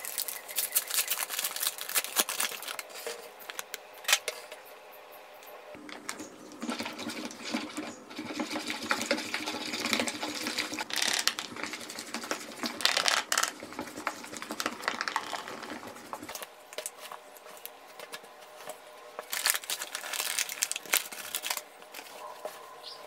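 Crinkling of a flour bag being opened, then a metal spoon scraping and clicking rapidly against a plastic bowl as flour is stirred.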